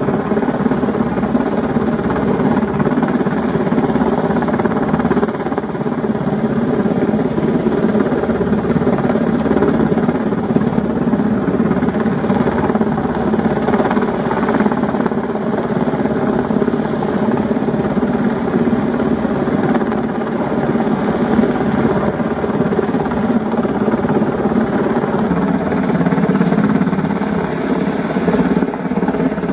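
Sikorsky UH-60 Black Hawk helicopter hovering steadily overhead under load, carrying a chairlift tower head on a long line. The rotor and turbine sound is loud and unbroken.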